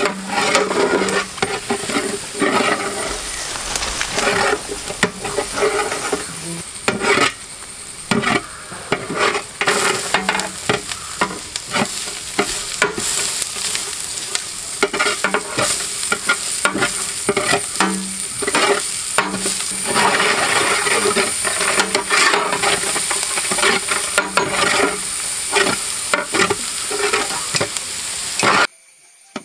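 Shallots, carrots and green beans sizzling as they fry in oil in a large aluminium pot, stirred with a perforated steel ladle that scrapes and clicks against the pot many times. The sound cuts off abruptly near the end.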